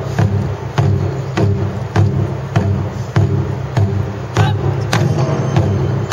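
Ensemble of Japanese taiko barrel drums (nagado-daiko) struck with wooden bachi sticks, playing a steady beat. Sharp strokes land about every 0.6 s over the deep, continuous sound of the drums.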